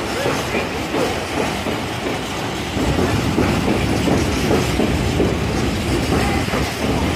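Freight train of open-top freight wagons rolling past at close range, wheels clacking over the rail joints with some wavering wheel squeal. The rumble grows louder about three seconds in.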